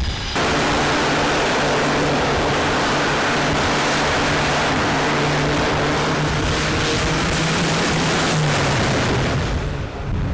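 Twin turboprop engines of a Grumman E-2 Hawkeye running at high power: a loud, steady drone with a low propeller hum. The hum rises briefly in pitch about eight seconds in, and the sound falls off just before the end.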